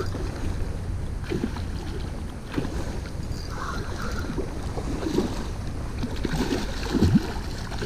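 Wind rumbling on the microphone over steadily running creek water.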